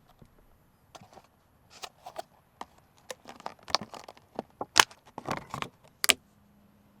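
Something being handled by hand: a quick, irregular run of rustles, clicks and taps, with two sharper clicks near the end.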